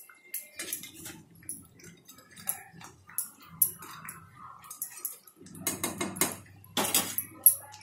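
Metal spatula clinking and scraping against an iron kadai as a simmering curry is stirred, in uneven repeated strokes that come thickest about six to seven seconds in. A faint low hum lies under it.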